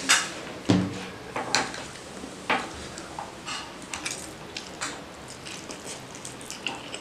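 A metal fork clinking and scraping on a plastic tray while picking up instant noodles, with a few sharp clicks and a knock in the first second or so. It is followed by quieter clicks and the slurping of a mouthful of noodles.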